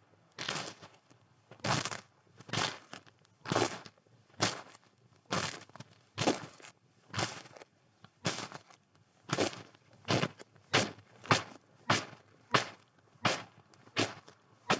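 Footsteps crunching in snow, one crunch per step at a steady walking pace that quickens to about two steps a second in the latter part.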